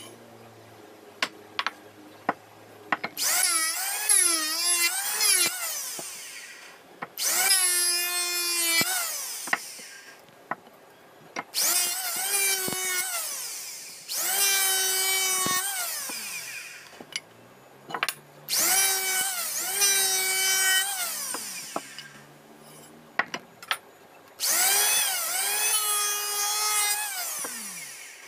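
Electric hand planer shaving a wooden chair leg in about six passes of a few seconds each, the motor whining over the hiss of the cut, with short knocks of the wood being handled between passes. The leg is being planed to even thickness and width.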